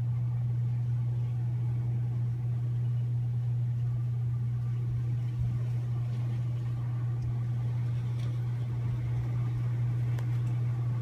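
A steady low machine hum that does not change.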